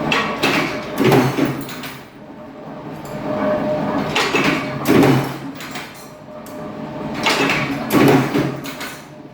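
A duct corner-making machine working sheet-metal offcuts into HVAC duct corners. It gives repeated bursts of metallic clacking and rattling about every three to four seconds over a steady motor hum.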